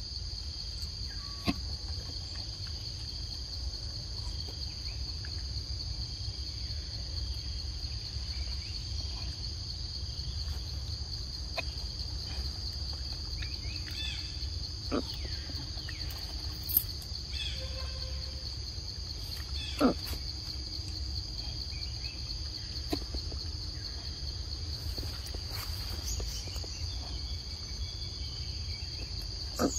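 A steady, high-pitched insect chorus with a low rumble underneath. A few sharp clicks stand out, and there are faint bird chirps about halfway through.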